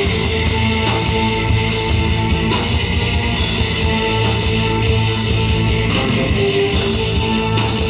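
Symphonic metal band playing loud, dense heavy music with distorted electric guitars and a drum kit. A high-pitched wash, likely cymbals, swells and drops about once a second.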